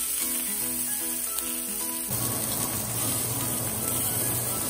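Background music, a run of held notes, for about the first two seconds. Then the sizzling of a ribeye steak searing in a hot cast-iron skillet takes over.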